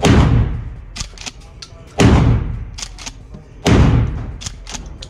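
Mossberg 590 Shockwave pump-action shotgun fired three times, about two seconds apart, each blast trailing off in the echo of an indoor range. Between shots there is a quick double clack as the pump is worked.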